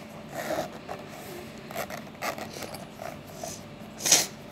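The chunky molded zipper of a Smiggle hard-shell pencil case being pulled open in short, irregular tugs, with one louder sharp noise about four seconds in.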